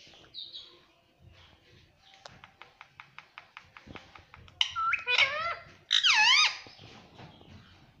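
Indian ringneck parakeet making a quick run of about a dozen clicks, then two loud squawking calls that sweep up and down in pitch, the first about four and a half seconds in and the second about six seconds in.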